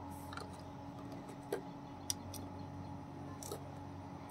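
A few faint clicks and ticks of wires and connectors being handled while the battery leads are hooked up to an amplifier board, over a faint steady hum.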